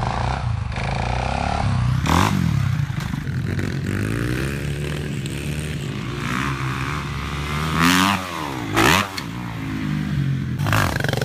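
Dirt bike engines revving and running across a few short clips. The pitch rises and falls as the throttle is worked, with a sharp swoop down and back up about eight seconds in.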